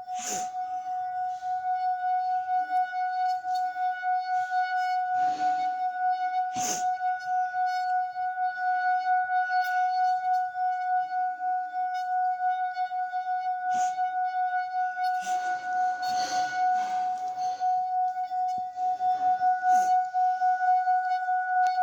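Metal singing bowl rubbed around its rim with a stick, giving one steady, sustained ringing tone that pulses slightly in loudness, with a few light knocks of the stick against the bowl.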